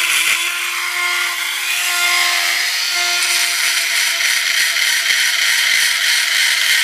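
Small handheld electric chainsaw-sharpening grinder running, its grinding wheel on the steel cutters of a skip-tooth chain: a steady motor whine under a grinding hiss that grows louder about two seconds in.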